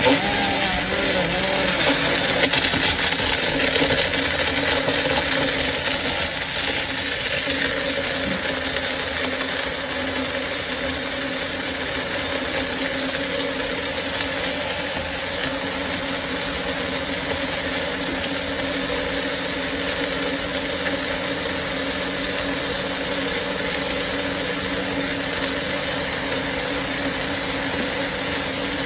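Car on the move: steady engine hum and road noise, starting abruptly.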